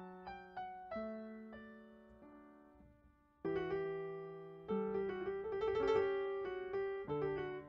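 Background piano music: single notes and soft chords that fade after each strike, growing louder with fuller chords about three and a half seconds in.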